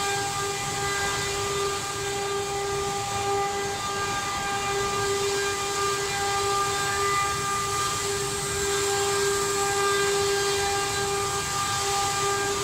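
CNC wood router spindle running with a steady high whine over an even hiss.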